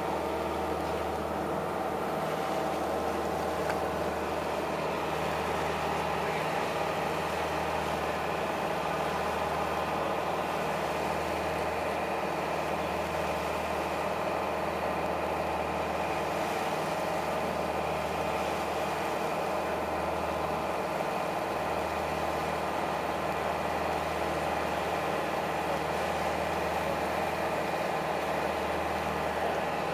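A boat engine running steadily underway, a constant drone with a low hum that swells and fades every couple of seconds.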